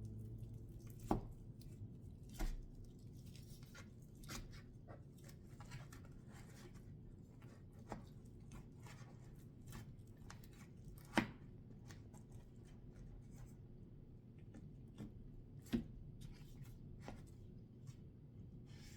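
Close-up eating sounds: chewing and tearing at a chicken drumstick, with many small wet clicks and a few sharper knocks spread through.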